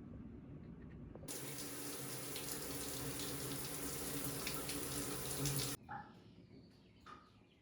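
Water running from a tap into a sink, turned on about a second in and shut off abruptly about four and a half seconds later, then a couple of light knocks.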